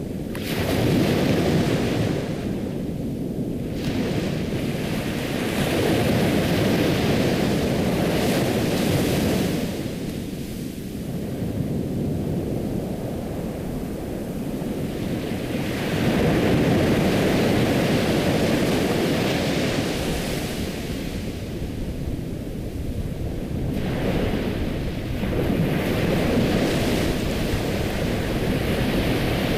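Ocean surf: waves rolling in and washing back, the rush swelling and falling away every several seconds.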